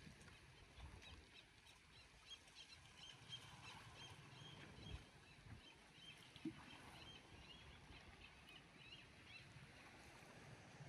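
Near silence with faint, quick chirps of small birds through the middle of the stretch, over a low rumble.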